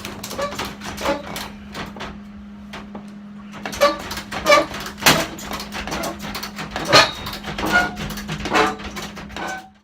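Steel roll-cage tubing and base plates being handled and set in place: a string of irregular metal knocks and clanks, some briefly ringing, over a steady low hum.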